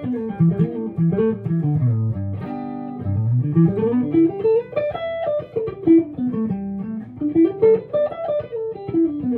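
Guitar played note by note in scale runs: the connector scale linking pentatonic shapes, descending over the first two seconds, then running back up and down again twice.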